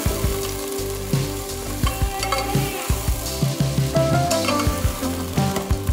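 Raw chicken pieces sizzling in hot ghee in a handi as a steel spoon stirs and turns them, the spoon scraping and knocking against the pot many times. This is the searing stage, cooking the chicken until it turns white.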